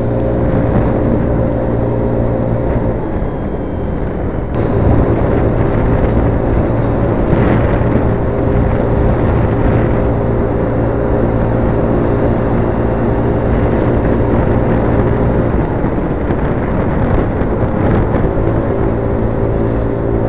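Motor scooter's small engine running steadily while riding, over road and wind noise. It eases off about three seconds in and picks up again a second or so later.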